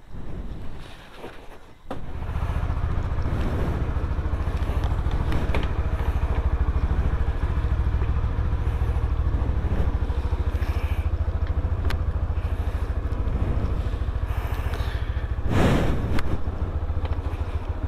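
Motorcycle engine starting about two seconds in, then running steadily at low revs. A brief louder burst about fifteen seconds in.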